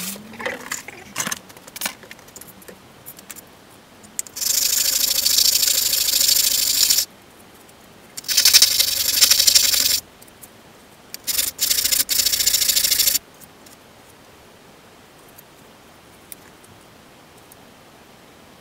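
A plastic stormtrooper helmet ear cap being sanded by rubbing it back and forth on a sheet of sandpaper laid flat on the bench, in three spells of a couple of seconds each, to take a little more off the piece. Some clicks and knocks of things being handled come first.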